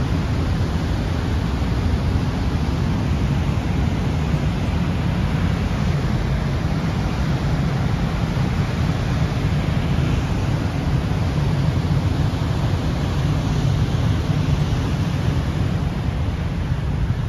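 Steady rush of turbulent floodwater churning below a dam spillway, with water pouring from an outlet into the basin.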